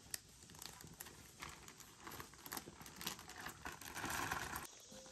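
Zip-top plastic bag with a trout in milk crinkling and rustling as it is handled: irregular crackles, with a louder stretch of rustling about four seconds in.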